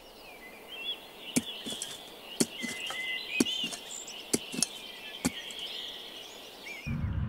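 Birds chirping and twittering in a cartoon garden ambience, with sharp clicks about once a second. Near the end a low rumble sets in.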